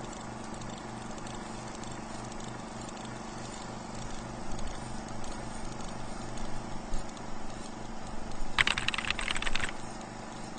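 Film projector sound effect: a steady whir with a low pulsing hum, constant crackle and clicking, and a louder burst of crackling about two-thirds of the way through.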